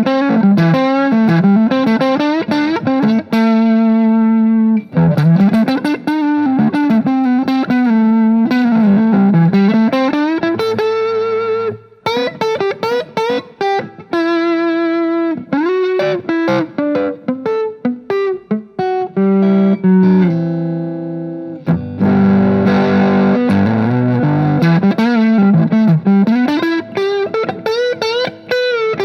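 Main Street Stratocaster-copy electric guitar on its front (neck) pickup, played with some gain through a Vox amp. It plays a lead line of single-note runs with string bends and vibrato and a few held notes, with fuller chords about three quarters of the way through.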